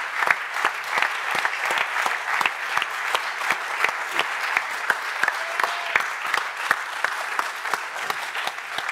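Audience applauding, many hands clapping at a steady, even level.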